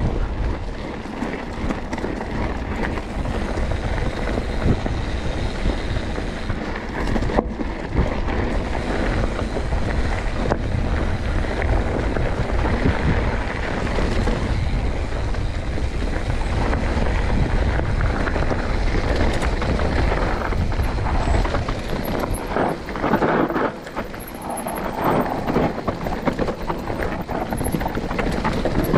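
Wind buffeting the camera microphone while riding fast down a rough trail, with rolling trail noise underneath and bursts of clatter over rougher ground about three quarters of the way through.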